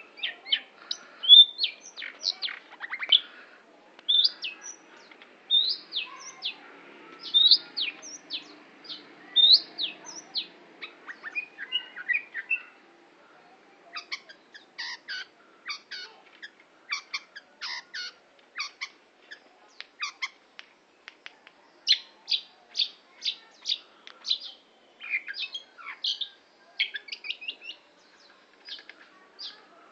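Long-tailed shrike (cendet) singing: a fast, varied string of short sharp chirps and quick rising whistled notes, with a short pause about halfway through.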